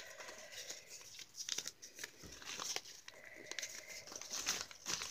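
Small paper slips being folded and creased by hand, with soft, irregular crinkling and rustling.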